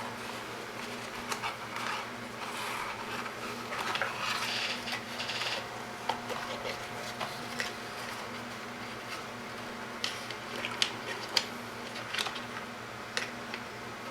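Light clicks and brief rustles of wires and small parts being handled, over a steady low hum.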